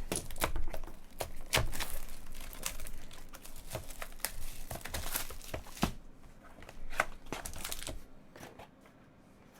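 Packaging of a sealed trading card box being torn open, the wrapper crinkling and tearing in irregular crackles that die down near the end.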